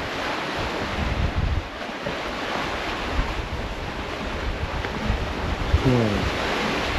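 Wind buffeting the microphone over the steady wash of sea waves on a rocky shore.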